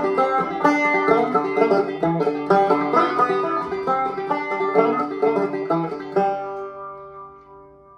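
Acoustic banjo with a pickup, played through a phaser pedal set for an almost robot-like tone: a quick run of picked notes for about six seconds, then a last chord ringing out and fading.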